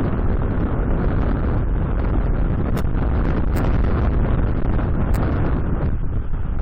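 Strong wind buffeting the nest camera's microphone: a steady, loud low rumble with a few brief high ticks.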